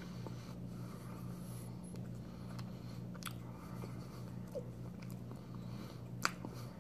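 Quiet mouth sounds of a person chewing a bite of a soft Taiwanese green tea cake, with scattered faint ticks, over a steady low hum. A sharp click comes near the end.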